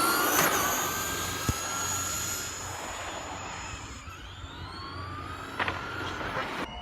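Electric motors of RC cars whining at high pitch as they speed up, the pitch rising and then fading away; another rising whine builds about four seconds in. A few short clicks are heard along the way.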